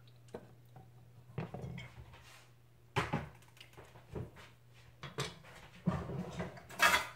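Scattered light knocks and clatters of kitchen items being handled at a stove, with a short louder rustle near the end, over a steady low hum.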